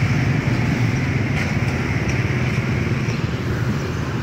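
Rebel 125 cc twin-cylinder motorcycle engine idling steadily.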